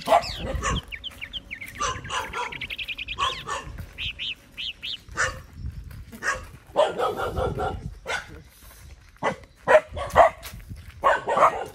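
Several dogs barking in short, repeated bursts, with a quick run of small high yaps in the first few seconds and louder barks later on.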